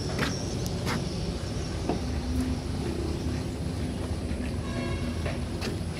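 Footsteps knocking on the loose wooden planks of a walkway, a few sharp knocks in the first two seconds and again near the end, over a steady low rumble.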